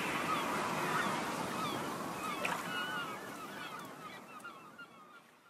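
The soundtrack's closing fade: a wash of sound dotted with many short, rapid chirping glides like bird calls, growing steadily quieter until it fades out to silence at the very end.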